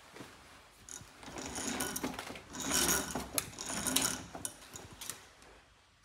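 Roller blind being raised by pulling its bead chain through the clutch: a fast, continuous run of rattling clicks lasting about four seconds, loudest in the middle, then trailing off.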